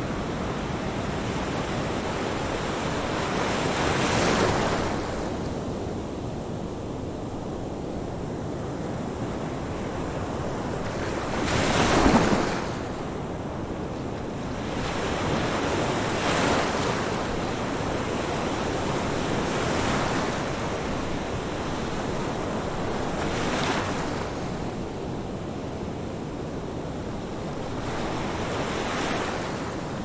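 Ocean surf: a steady wash of breaking waves that swells about six times, the loudest crash about twelve seconds in.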